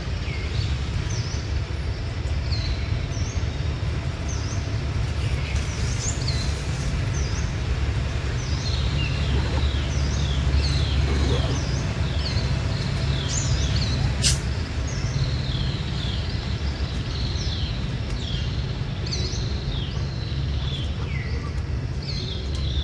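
Many short, high, downward-sweeping bird chirps, several calls overlapping, over a steady low rumble. One sharp click comes about two-thirds of the way through.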